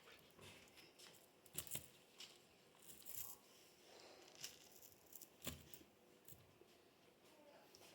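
Near silence: faint room tone with a few scattered soft clicks and rustles.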